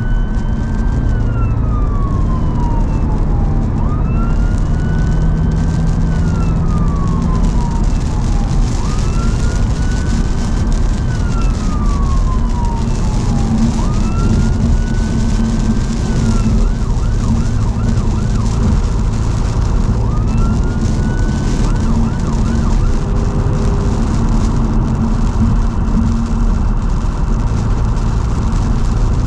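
EMS response car's siren heard from inside the cabin: slow wails rising and falling about every four seconds, twice broken by a brief fast yelp. The siren stops about two-thirds of the way through, leaving steady engine and wet-road tyre noise.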